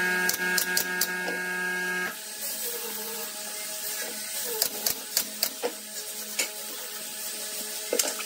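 Cordless drill running steadily for about two seconds as it drives a screw into a pallet-wood slat, then stopping abruptly. Afterwards there are scattered light knocks and clicks as the wooden slats are handled.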